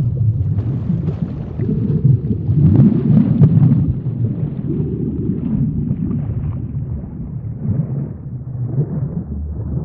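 Underwater ambience sound effect: a low, rumbling wash of water that swells and eases, loudest in the first half.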